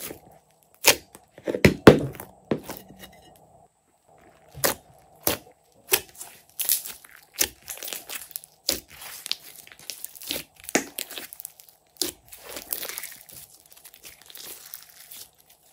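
Glossy slime squeezed and kneaded by hand, giving irregular sharp pops and crackles as air pockets in it burst, with a short lull about three seconds in.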